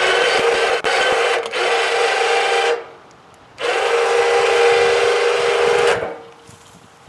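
The motor of a sawmill's powered log loader runs with a steady whine as the loader arms lift a log onto the mill bed, in two runs of about two to three seconds with a short stop between them.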